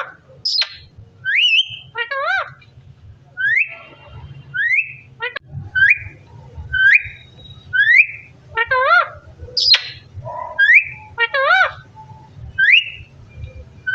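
Pet parrot whistling: short rising whistles repeated about once a second. A few warbling calls of wavering pitch and two sharp falling high notes are mixed in.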